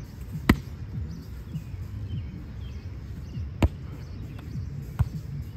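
Hands striking a beach volleyball: three sharp smacks, about half a second in, at about three and a half seconds, and at five seconds, over a steady low rumble.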